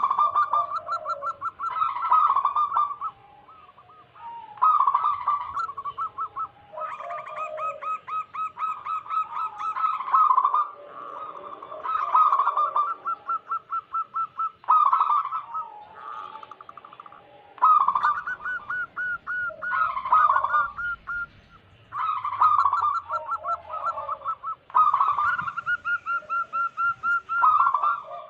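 Zebra dove (perkutut) song: about eight phrases of rapid, evenly pulsed coos, each lasting one to four seconds, with short pauses between them.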